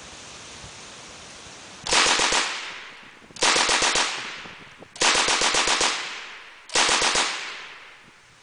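Light machine gun firing four short bursts of automatic fire, each a rapid string of shots about half a second long, spaced roughly a second and a half apart. Each burst rings on in a long echo before the next.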